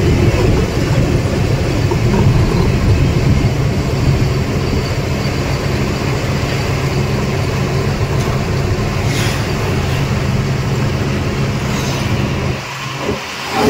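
Truck engine running steadily under way, with a low drone and road noise. The sound dips briefly near the end.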